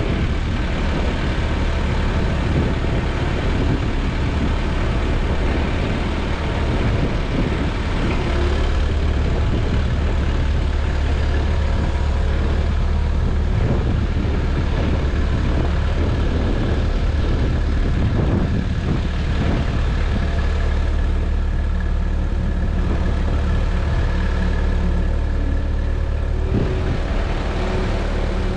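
An engine running steadily at close range, with a few faint knocks over it.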